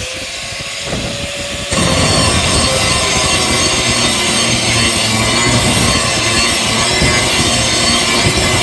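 Handheld angle grinder grinding into a steel bar, the stock for a cleaver sword blade. Its note is lighter at first, then about two seconds in the disc bites in and it settles into a steady, loud, hissing grind.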